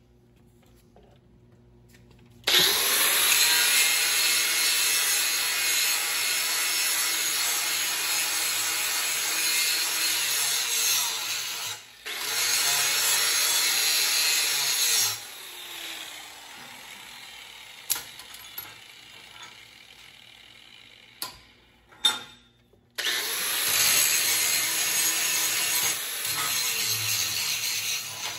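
Handheld angle grinder with an abrasive disc grinding one side of a steel backing strap clean down to bare metal for welding. It starts about two and a half seconds in and grinds steadily, with a short break around the middle. It then drops to a much quieter run for several seconds with a few sharp clicks, and grinds loudly again for the last five seconds before cutting off.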